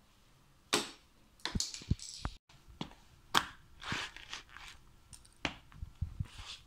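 Small toy figurines crushed under a canvas sneaker sole on a laminate floor: an irregular string of sharp cracks and crunches as the shoe presses and grinds down on them.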